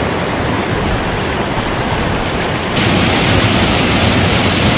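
Rushing creek water, a loud, steady hiss that suddenly gets louder and brighter about three seconds in.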